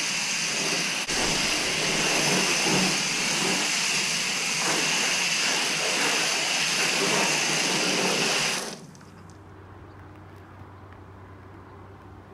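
Hose-end foam gun spraying soapy water onto a car's body panels and wheel: a steady hiss of spray with water splashing on the bodywork. It cuts off suddenly about nine seconds in, leaving only a faint low hum.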